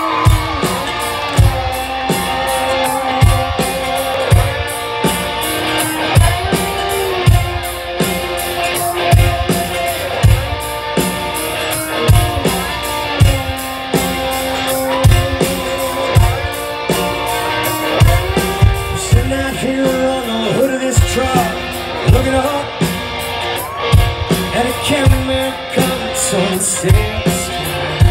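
Live country band playing a song: a male lead vocal over electric guitars and a drum kit with a steady beat.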